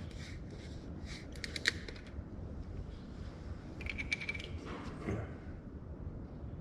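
A few light clicks and rattles in two short clusters, about a second and a half in and about four seconds in, from handling a quart bottle of motor oil.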